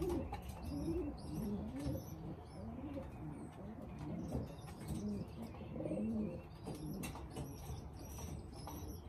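Racing pigeons cooing in the loft: a run of low rising-and-falling coos about once a second, with short high chirps above them.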